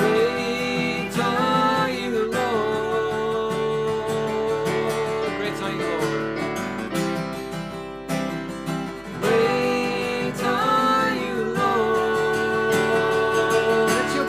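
A man and a woman singing a worship song in long, held lines over a strummed acoustic guitar and an electronic keyboard.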